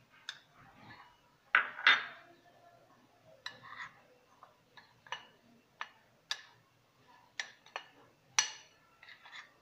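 A metal spoon clinking and scraping against a cut-glass bowl as dry ground powder is stirred together, in scattered sharp clinks, the loudest about two seconds in and again near the end.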